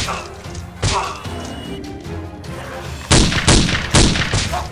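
Background music under sharp added impact effects: a thud at the start and another just under a second in, then four sharp bangs in quick succession, about 0.4 s apart, as a toy blaster is fired.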